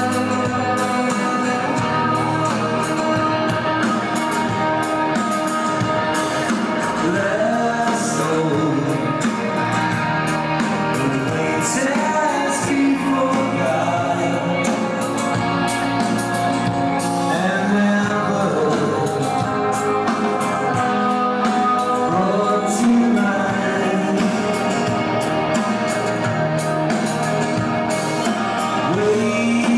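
Rock band playing live, loud and steady: electric guitars, bass guitar and drums under a male lead singer.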